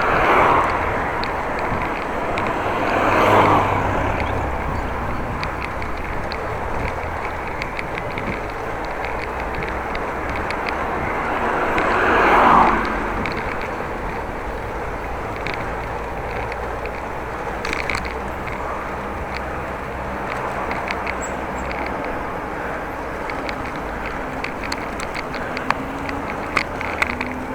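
Steady riding noise of a bicycle: wind and tyre-on-road rumble. It swells louder three times, near the start, about three seconds in and about twelve seconds in, with a few light clicks near the end.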